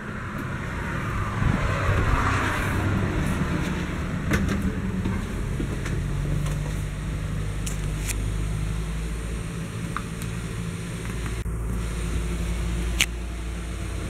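A steady low mechanical hum and rumble, with a few faint clicks.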